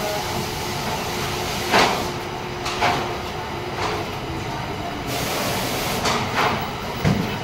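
Factory floor noise: a steady mechanical hum with several sharp clicks and knocks scattered through it.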